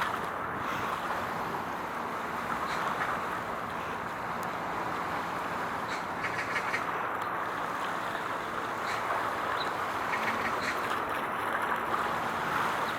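Steady outdoor wind and water noise with a faint low hum, and a few short, high chattering calls about halfway through and again near the end.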